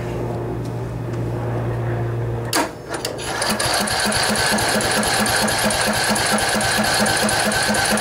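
Electric starter cranking a Briggs & Stratton Intek 18.5 hp single-cylinder OHV riding-mower engine, starting with a click about two and a half seconds in. A steady starter whine comes with an even chug of about four compression strokes a second, and the engine does not fire. It is being turned over so the fuel pump can refill the emptied carburetor.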